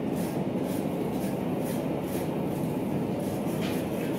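Steady roaring rumble of a forge running in the shop. Near the end there is a short hiss as the hot iron spoon is dipped into a bucket of quench water.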